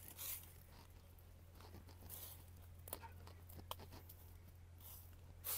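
Faint rustling and scattered small snaps of grass and weeds being pulled up by gloved hands, over a steady low hum.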